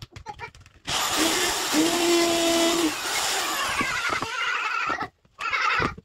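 Parkside electric drill running for about four seconds, starting about a second in, boring through a wooden drilling jig into a kitchen cabinet door for a handle hole. A steady whine shows partway through, and a second short burst of drilling comes near the end.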